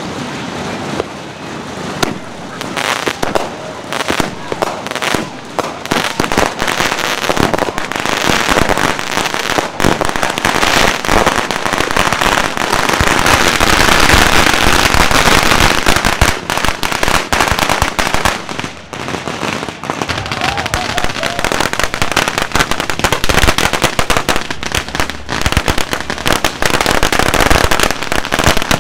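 Firecrackers and fireworks going off on the street in rapid, dense crackling strings with scattered sharper bangs. The popping grows denser and louder about a quarter of the way in, eases briefly about two-thirds through, then picks up again.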